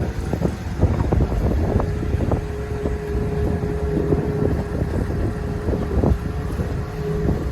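Fishing boat's engine running steadily at sea, with a held drone and scattered knocks, and wind buffeting the microphone.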